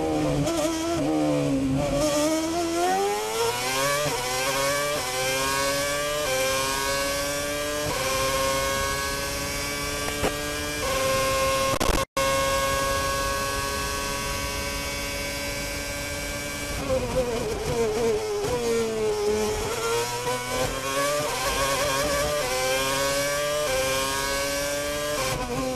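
Ferrari F10 Formula One car's 2.4-litre V8 at racing revs. It downshifts under braking, then climbs through the gears with quick upshifts, each one dropping the pitch a step. It holds a high steady pitch flat out, then downshifts under braking and accelerates again. The sound cuts out briefly just after halfway.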